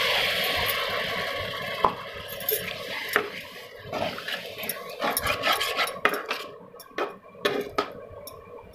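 Metal spatula scraping and clinking against a metal pan while stirring a wet tomato-onion masala, at irregular moments. A hiss from the water just added to the hot pan fades over the first couple of seconds.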